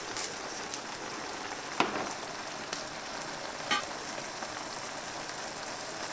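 Sauce for vegetable Hakka noodles sizzling in a pan with a steady frying hiss. Two short clicks come about two and four seconds in.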